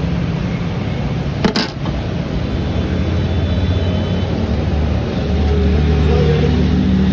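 Street traffic: a motor vehicle's engine rumbles steadily and grows louder over the last couple of seconds. A single sharp click sounds about a second and a half in.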